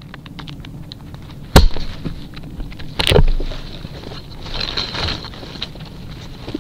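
Raccoon at the trail camera, handling and tugging at the moss-and-grass camouflage over it: light ticks and scrapes, two sharp knocks about a second and a half apart, then scratchy rustling.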